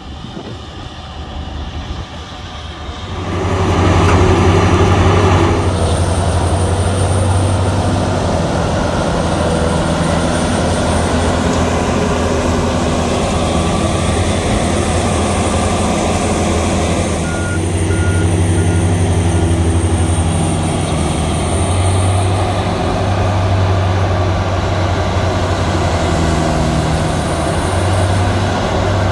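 EP5500 Shark V wood grinder running under load, its engine a steady heavy hum with the grinding of green waste and branches; it grows louder about three seconds in. A few short reversing-alarm beeps sound near the middle.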